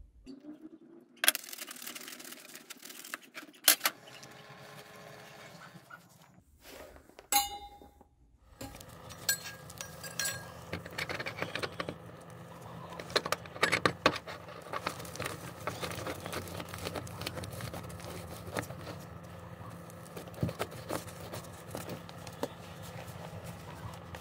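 Hand-work noises: a utility knife cutting foil-faced rock wool pipe insulation, then scattered clicks, rustles and light metallic clinks as the insulation and a corrugated steel exhaust pipe are handled and fitted through a hole in a wall. A steady low hum runs under the second part, starting about a third of the way in.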